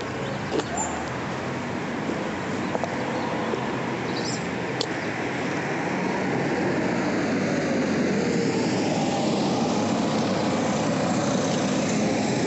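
Vehicle running with road noise, steady, growing somewhat louder about halfway through.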